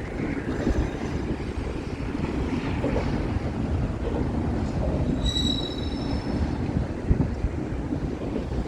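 Freight train cars, auto racks and flat cars, rolling past with a steady low rumble of steel wheels on rail. About five seconds in, a wheel squeals briefly with a high ringing tone.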